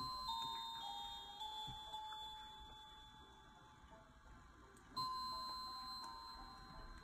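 Slow chiming melody of bell-like notes, each ringing out and fading, with a fresh, louder note struck about five seconds in.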